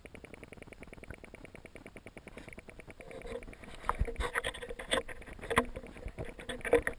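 Water sloshing and knocks against an older GoPro camera's underwater housing as it is lowered into the river. The first three seconds are faint and steady; from about three seconds in come irregular knocks and splashy water noise.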